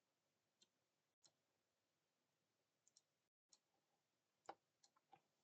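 Faint computer mouse clicks, about nine single and paired clicks at irregular spacing, against near silence.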